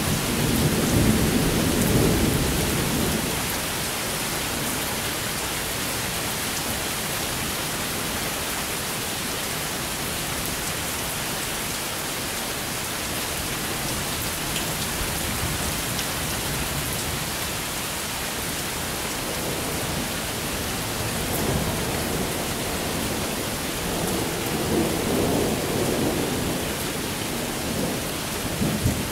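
Steady rain in a thunderstorm, with thunder rumbling low for the first few seconds and again for several seconds near the end.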